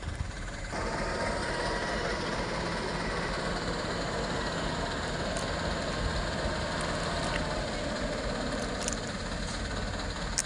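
Diesel truck engine running steadily at low speed as a loaded truck crawls through deep mud. The sound steps up a little under a second in, then holds even.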